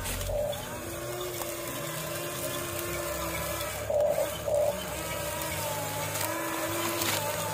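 Small electric motors of radio-controlled construction models whining, the pitch shifting in stretches of a second or two as they work, with a couple of brief louder bursts.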